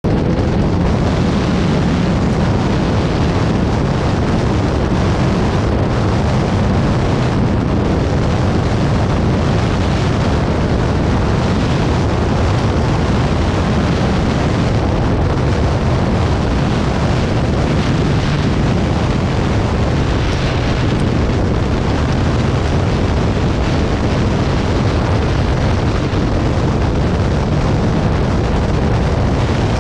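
Motorcycle on the move: wind buffeting the microphone over the engine, a steady, loud, unbroken noise.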